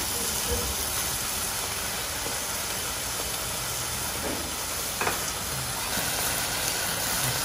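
Beef steaks and minced garlic sizzling steadily in a hot frying pan, with one short knock about five seconds in.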